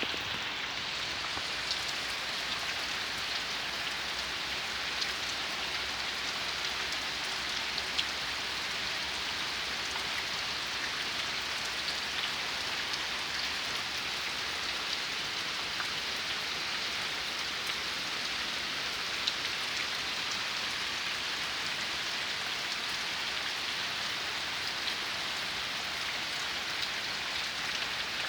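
Steady rain falling, with scattered single drops ticking louder now and then.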